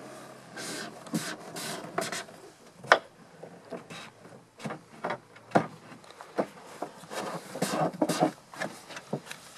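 Handling noises as a large-scale model aircraft is being assembled: scattered sharp knocks and clicks with bits of rubbing and scraping.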